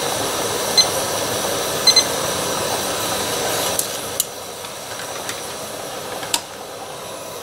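Propane canister stove burner hissing under a mess kit pot of boiling water, with short electronic timer beeps about a second in and again near two seconds. About four seconds in the hiss drops, and a couple of sharp metallic clicks follow as the pot is lifted off the burner.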